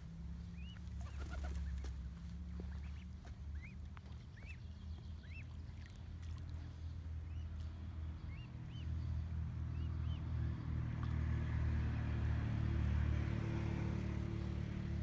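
Mute swan cygnets peeping: short, high, scattered chirps. Under them runs a steady low engine drone that grows louder in the second half.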